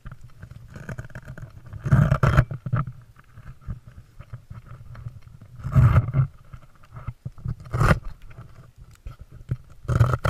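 Handling noise on a GoPro strapped to a dog: hands and jacket fabric rub and scrape against the camera and its harness, coming in loud bursts about two, six, eight and ten seconds in.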